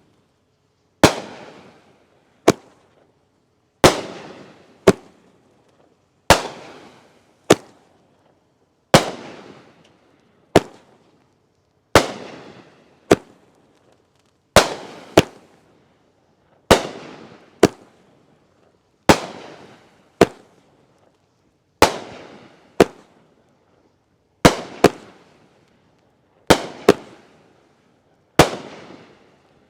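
A firework cake firing shot after shot, about a dozen in all, roughly one every two and a half seconds. Each shot is a sharp bang with a trailing echo, followed about a second later by a second, shorter crack.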